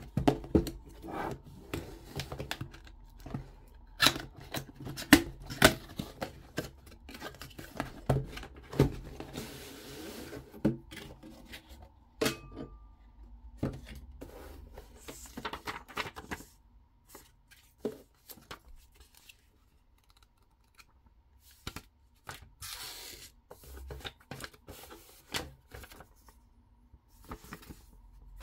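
Cardboard box and plastic packaging being handled and opened by hand: irregular taps, clicks and scrapes, with a couple of short rustling or tearing noises.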